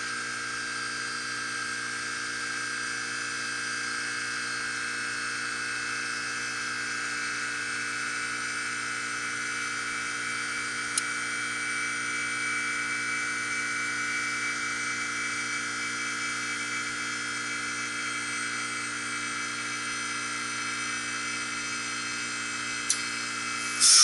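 Heat pump outdoor unit running steadily in its defrost cycle: a steady hum with a high whine. Two sharp clicks come, about halfway through and near the end.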